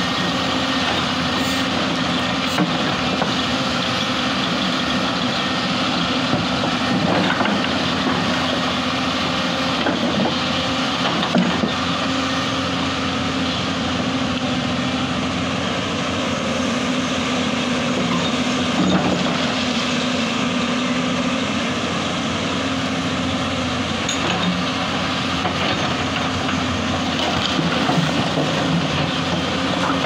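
Hyundai 220LC crawler excavator's diesel engine running steadily as the machine works, with a held, even engine note. A couple of brief knocks stand out, one about a third of the way in and one near the middle.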